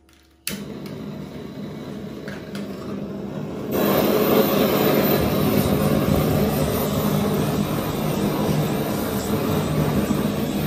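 Kitchen gas blowtorch on a blue gas cartridge lit about half a second in, then burning with a steady rushing hiss that gets louder about four seconds in. The flame is heating the metal cake frame so the set mousse will come away from it.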